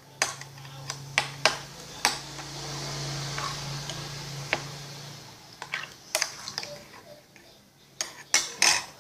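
Freshly set homemade clear slime being squeezed and handled in its bowl: a run of sharp clicks and snaps, a few near the start, one in the middle and a quick cluster near the end, over a steady low hum that fades about halfway through.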